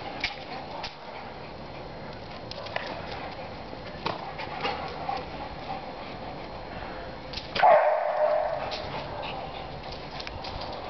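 Two dogs scrabbling and leaping on brick paving, their claws clicking in scattered bursts, with one short, loud dog cry about three-quarters of the way through.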